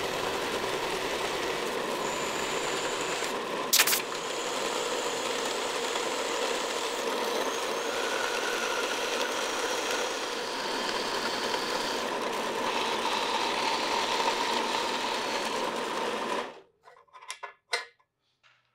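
Bandsaw cutting through aluminium bar stock, a steady running and cutting noise with one sharp click about four seconds in. The saw stops near the end, followed by a few light knocks.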